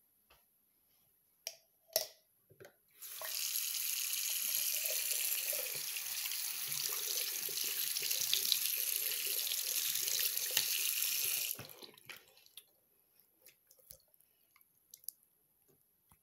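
Bathroom sink tap running, starting about three seconds in and shut off after about eight seconds, with the water pouring over a plastic rapid antigen test cassette held under the stream. A few light knocks come before the water starts.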